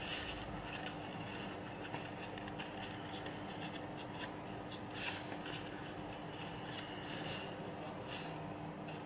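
Origami paper being folded and creased by hand: soft rubbing and rustling of the sheet, with a few sharper paper crackles near the start, about five seconds in and around seven to eight seconds in, over a faint steady hum.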